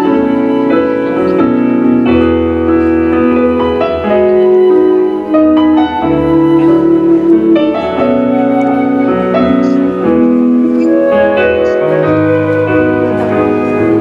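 Live band's keyboard playing slow, held chords: the instrumental introduction of a song, with no singing yet.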